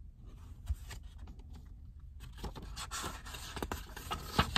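Paper rustling and crackling as a page of a paperback picture book is turned by hand, with small clicks of handling before it; the rustle starts about two seconds in.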